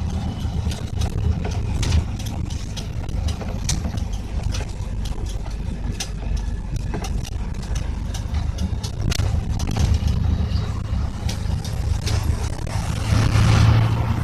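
An engine running steadily with a low hum, over scattered clicks and knocks; it swells louder near the end.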